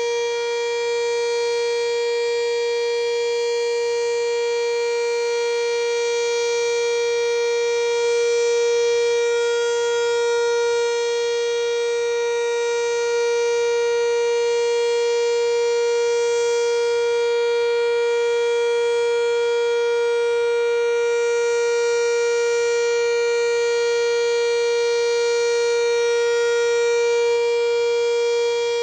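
Sentry outdoor warning siren, which the uploader takes for a 3V8-H, sounding its steady alert tone in a weekly test. It holds one pitch with many overtones, swelling slightly in loudness now and then.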